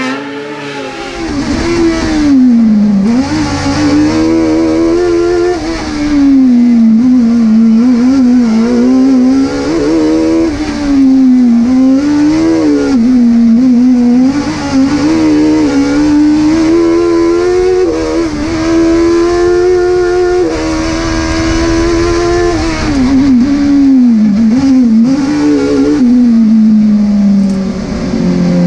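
Speedcar GTR race car's engine revving hard through a twisty course, heard from inside the cockpit. Its pitch climbs and drops over and over with gear changes and throttle lifts, and settles to a steadier, lower note near the end.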